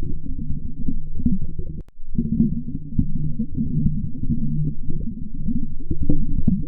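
Muffled, bubbling low rumble from an underwater voice-changer effect: the sound is heavily muffled, with all the higher sounds cut away and a steady low hum running under it. It drops out briefly about two seconds in.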